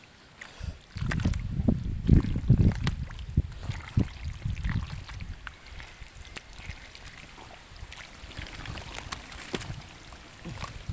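Muddy shallow water splashing and sloshing in irregular surges, loudest a second or two in, with scattered clicks and knocks.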